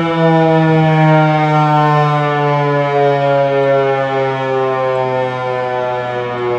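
Federal Signal 508-128 dual-tone outdoor warning siren winding down, its chord sliding slowly lower in pitch. Its rotator is broken, so the siren stays pointed one way and the sound holds steady instead of sweeping louder and softer.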